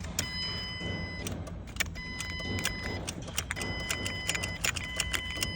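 A 2006 Ford Mustang's warning chime sounding four times in long, steady tones of about a second each, over sharp clicks and jangling keys as the ignition key is worked. No starter cranking is heard, fitting the no-crank fault.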